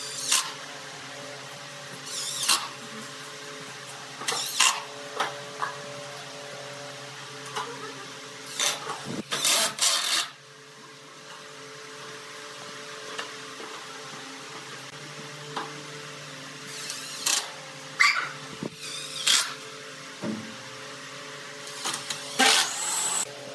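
Cordless drill driving screws through plastic crate bottoms into a wooden pallet base in a series of short runs. The longest run comes about nine seconds in and lasts over a second, with knocks of plastic being handled between runs and a steady low hum underneath.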